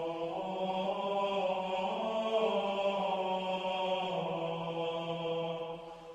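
Background music: a sustained, choir-like droning chord held steady, growing a little quieter near the end.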